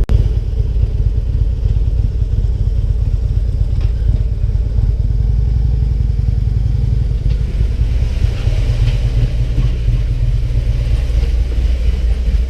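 Harley-Davidson Ultra Limited touring motorcycle's V-twin engine running steadily under way, with the rumble of riding at a constant speed picked up on the bike.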